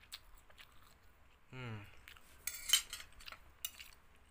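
A metal spoon scraping and clinking against a plate of noodles in a few short strokes, the loudest about two and a half seconds in. A brief low hum from the eater comes just before it.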